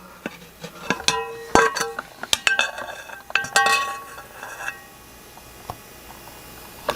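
Small metal parts clinking and tapping with brief ringing tones, a cluster of sharp clinks over the first four seconds or so that then stops: the springs and clips of a generator carburetor's linkage being handled during reassembly.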